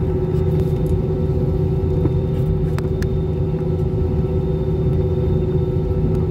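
Inside the cabin of a Super Air Jet airliner taxiing: the turbofan engines and cabin air make a steady drone with a low rumble and a few held hums. A couple of faint clicks come about two and three seconds in.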